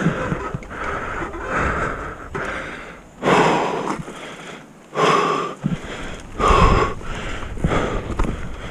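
A mountain biker breathing hard, panting breaths about once a second with a few louder gasps in the middle, over the rumble of the bike rolling on a dirt trail.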